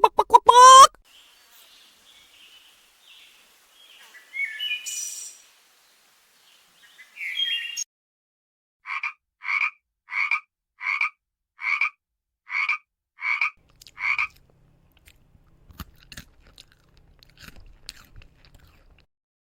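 A frog croaking about eight times in an even series, each croak short and under a second apart, ending about 14 seconds in. It opens with the tail of a duck's rapid quacking, and two brief unidentified animal calls come between.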